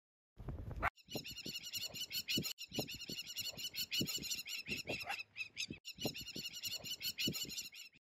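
A fast run of short, high, chirping animal calls, several a second, with a short break about five and a half seconds in. Before the calls, a brief low rumble cuts off abruptly just under a second in.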